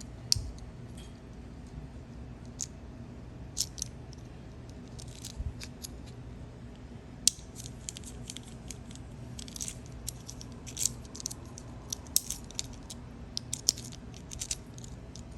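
Scattered light metallic clicks and clinks of a newly cut key and a small three-lever barrel lock being handled, busier in the second half, over a low steady hum.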